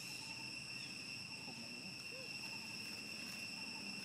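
Steady high-pitched insect chorus: a continuous, unbroken whine held at two pitches, with fainter wavering sounds low beneath it.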